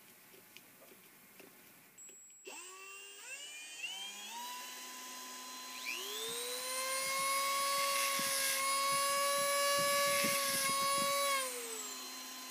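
A cordless drill spins up about two and a half seconds in, turning a steel rivet gun nose in its chuck. About six seconds in a Dremel rotary tool joins with a higher rising whine and a carbide burr grinds out the nose's rivet-head cup. The Dremel winds down near the end.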